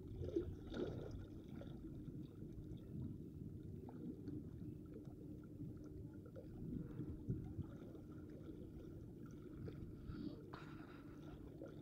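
Faint, steady low rumble of background noise with a few soft scattered ticks; no distinct event stands out.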